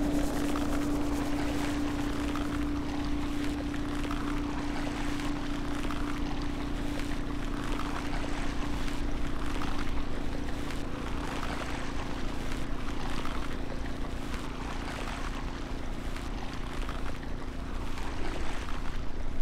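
Ambient electronic soundtrack: a steady low drone tone held under a noise texture that swells and fades every couple of seconds, growing louder near the end.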